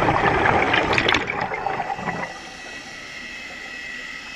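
Air bubbles rushing and gurgling underwater, loud at first, then dying down about two seconds in.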